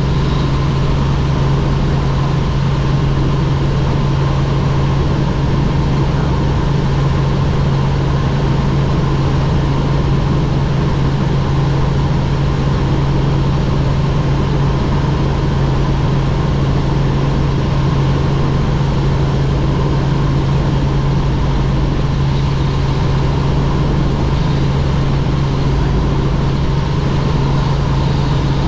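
Helicopter in flight: a loud, steady drone of engine and rotor with a strong low hum, unchanging throughout.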